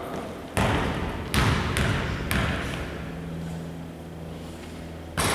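A basketball bounced four times on a hardwood gym floor as the shooter dribbles before a free throw, then a louder bang near the end.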